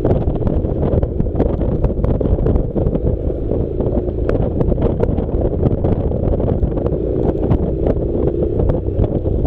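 Heavy wind buffeting on the microphone over the steady running of a Honda NC700 motorcycle's engine while riding, with scattered sharp ticks throughout.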